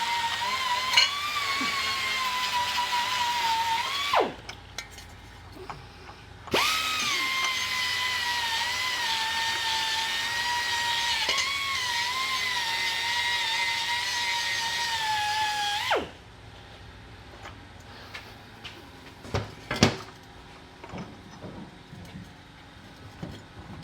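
Handheld power tool running with a steady high whine that dips slightly in pitch as it takes load; it winds down about four seconds in, starts again about two seconds later, and runs until about sixteen seconds in before winding down. Light clicks and knocks of metal parts follow.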